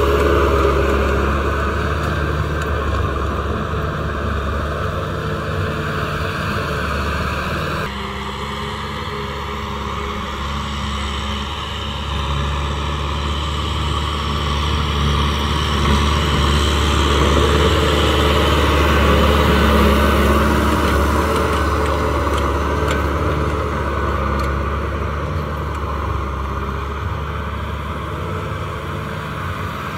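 Tractor diesel engine running steadily under load as it pulls a rotary tiller through the soil. The sound changes abruptly about eight seconds in and swells a little around the middle.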